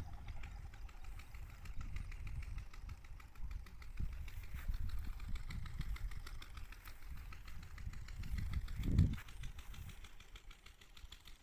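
An engine running steadily with a fast, even pulse, rising to a louder low swell about nine seconds in.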